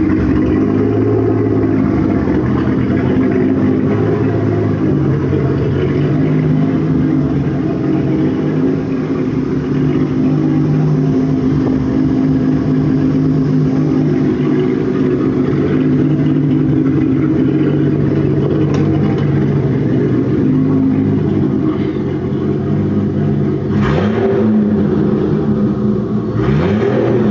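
Turbocharged 1989 BMW 325i (E30) 2.5-litre straight-six with a 3-inch straight-pipe exhaust, idling steadily, then revved briefly twice near the end. It is heard indoors through a phone microphone, which colours the sound.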